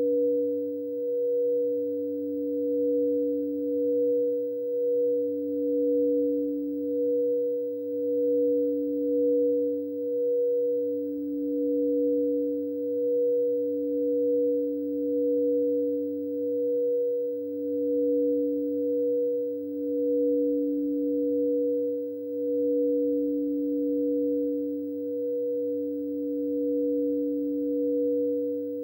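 Two frosted quartz crystal singing bowls sustained by mallets circled around their rims, giving a lower and a higher steady tone together. The tones swell and fade in a slow, even pulse.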